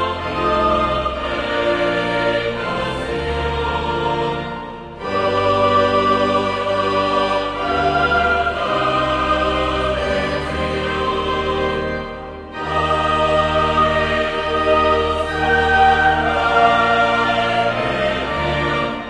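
Choral music: a choir singing long held phrases, with short breaks between phrases about five and twelve seconds in.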